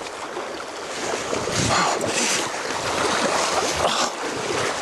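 Fast river water rushing steadily, with louder surges from about one and a half seconds in.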